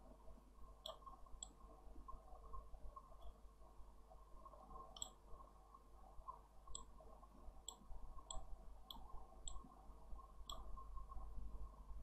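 Computer mouse clicking: about ten single clicks at uneven intervals, over a faint low hum.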